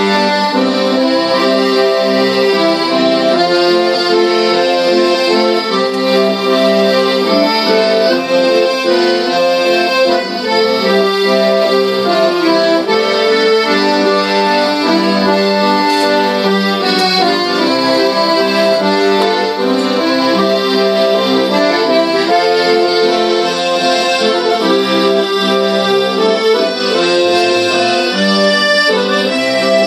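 Instrumental music in a traditional Irish style, led by an accordion-like melody over a steady low drone, with no pause.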